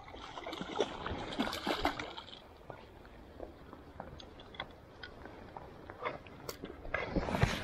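Stream water sloshing and splashing, with irregular small knocks and splashes that come thicker near the end.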